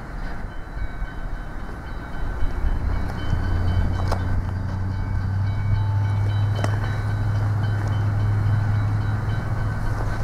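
Diesel locomotive hauling a wheat train on its approach, its engine drone growing louder from about three seconds in and holding steady. Two brief sharp clicks are heard along the way.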